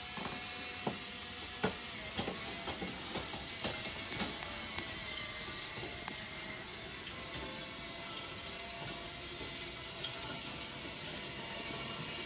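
Toy monorail train running on its track: a steady whir from its small motor, with a run of light clicks in the first few seconds.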